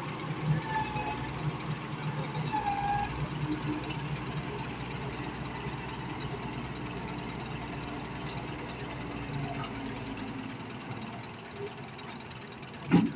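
Excavator's diesel engine running steadily at a low hum, with one sharp knock near the end.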